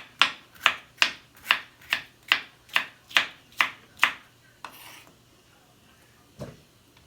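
Knife chopping bell pepper on a cutting board in a steady rhythm, about ten strokes at roughly two and a half a second, stopping about four seconds in. A short scrape follows, then a single knock near the end.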